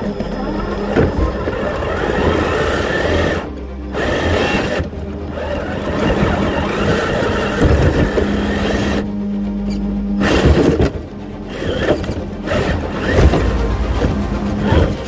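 Traxxas TRX-4 RC rock crawler's electric motor and geared drivetrain whining as it climbs over rock and roots, in surges with short pauses in the throttle, under background music.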